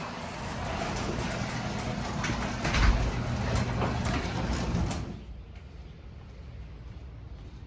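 Wind buffeting the microphone with a gusty low rumble, easing off sharply about five seconds in to a quieter hiss.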